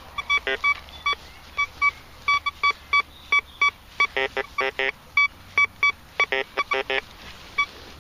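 Thracian metal detector sounding off as its coil is swept over a dug hole: a rapid string of short beeps, some higher and clean, others lower and buzzier, in clusters about four seconds in and again around six to seven seconds. It is signalling a buried target still in the hole that has not yet been dug out.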